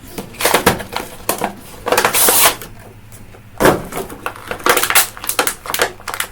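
Crackling, rustling and clicking of an action figure's plastic and cardboard packaging being opened and handled, in quick irregular bursts with a longer rustle about two seconds in.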